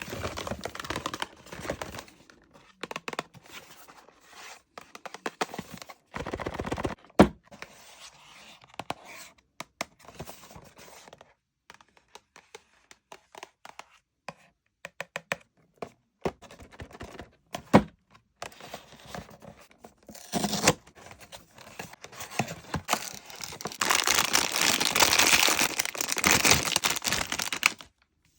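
Blind-box packaging being opened by hand: scattered taps and knocks, with bouts of crinkling and tearing of wrapping. A longer, louder stretch of tearing and crinkling comes near the end.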